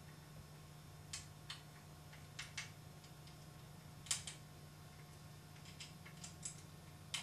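Scattered light clicks and taps, about ten in all and irregularly spaced, as screws on a camera body-mount support rig are tightened with a hex key. A low steady hum runs underneath.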